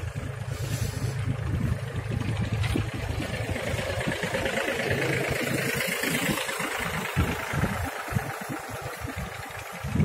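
Diesel farm tractor engine running steadily as the tractor, pulling a trailer, drives past close by.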